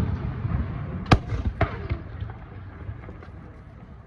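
Fireworks shells bursting: a sharp bang about a second in and a second, smaller bang half a second later, over low rumbling echoes and crackle that fade toward the end.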